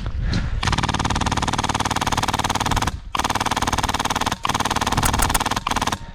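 Airsoft gun firing full-auto in long rapid bursts, the shots coming too fast to count. There are three long strings and a short one, starting about half a second in.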